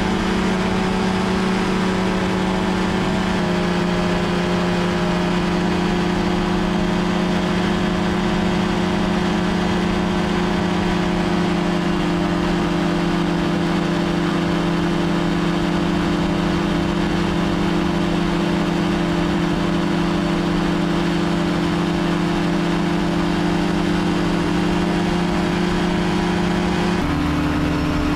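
Powered parachute's engine and pusher propeller running steadily at flight power. Near the end the pitch drops as the power comes back with the machine rolling on the ground.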